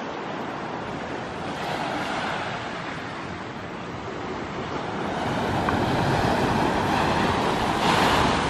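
Small waves breaking and washing up a coarse pebble beach. The surf swells louder from about five seconds in and peaks near the end, with wind rumbling on the microphone underneath.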